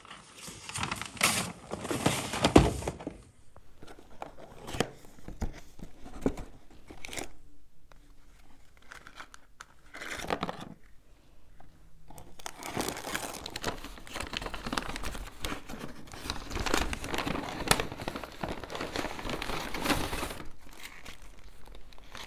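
Paper takeaway bag, cardboard food box and food wrappers being handled and opened, crinkling and rustling. The crinkling is densest in the first three seconds and again through most of the second half, with scattered handling noises between.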